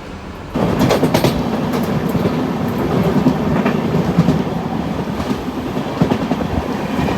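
Passenger train running along the track, its wheels clattering over the rail joints with a steady rumble and many irregular clicks and knocks, starting loud about half a second in.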